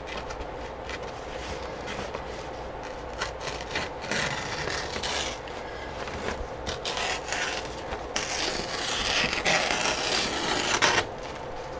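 Sheets of paper being handled and slid across a work table: two longer stretches of rustling and rubbing, about four seconds in and again from about eight to eleven seconds, with a few light taps just before the first.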